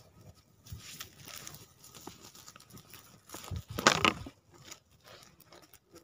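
Small campfire of twigs crackling with scattered sharp pops, mixed with rustling and crunching on snowy leaf litter; one louder crunching rustle about four seconds in.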